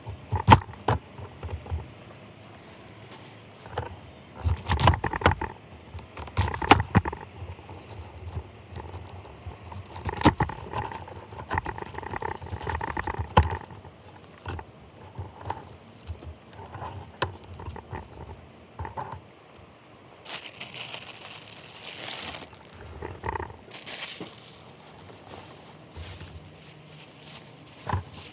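Camp-cooking handling sounds: scattered knocks and clicks with crinkling, and two longer bursts of hissing rustle about twenty and twenty-four seconds in.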